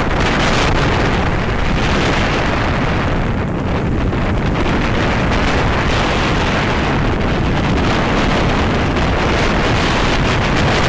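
Wind buffeting the microphone of a camera carried downhill on skis: a loud, steady rushing roar with a heavy low rumble.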